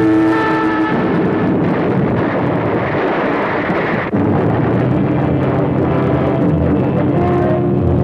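Cartoon sound effect of a rocket vehicle's loud rushing roar, which cuts off sharply about four seconds in. A steady low engine drone with held tones follows.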